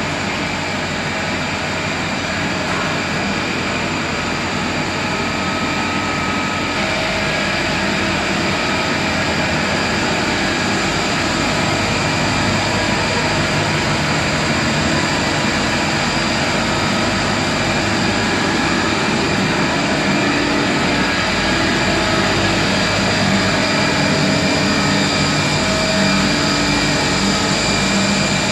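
Olive oil mill machinery running with a steady, loud mechanical drone and constant hum tones.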